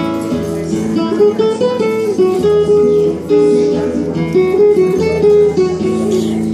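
Acoustic guitar played live: a run of quickly changing plucked notes over steady low notes.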